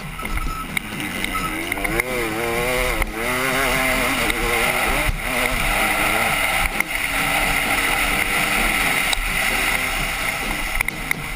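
Motocross bike engine heard from the rider's helmet, its pitch rising and falling as the throttle is worked through the gears, over a steady rushing noise with a few sharp knocks.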